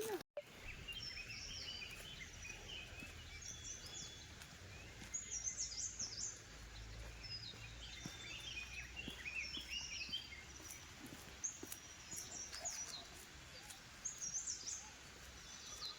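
Several small birds chirping and twittering in short, overlapping high phrases, over a faint low rumble.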